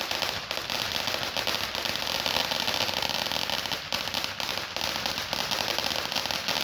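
Consumer firework crackling: a fast, dense run of small pops that goes on without a break.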